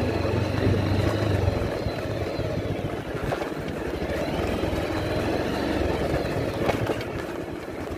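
Motor scooter engine running while riding, a steady fast-pulsing hum with road noise, its low hum strongest in the first second and a half. A few short knocks come from bumps on the rough dirt road.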